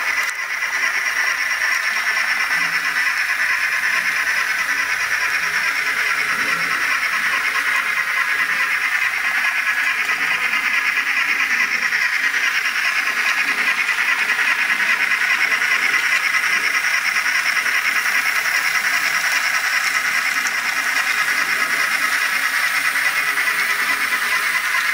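Onboard DCC sound decoder of an Athearn Genesis N scale Challenger 4-6-6-4 steam locomotive model playing its running steam sound through its tiny speaker: a steady, thin, fast-textured hiss and chuff with almost no bass.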